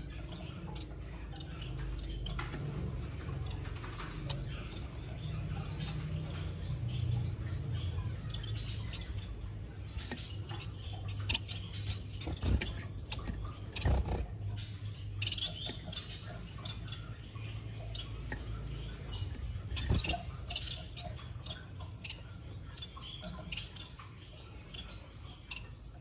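Finches chirping: a rapid stream of short, high chirps that grows denser about halfway through, with a few sharp knocks along the way.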